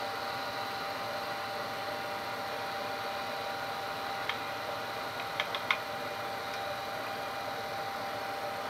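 Milling machine spindle turning a Denso alternator under bench test: a steady mechanical whir with a few constant whining tones. A handful of small clicks come about four and a half seconds in and again just before six seconds.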